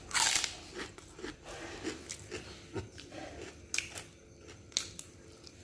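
A person biting into food close to the microphone, loudest in the first half second, then chewing with wet mouth noises and a few sharp clicks.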